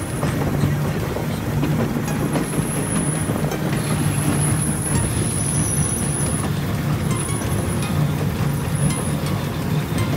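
Wulai tourist trolley, a small narrow-gauge rail car, rolling along its track with a steady rumble of wheels on the rails. Thin high whines come and go above the rumble.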